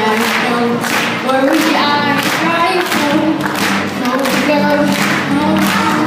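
A singer's voice over a strummed acoustic guitar, the strums coming in a steady rhythm of about two a second: a live acoustic song.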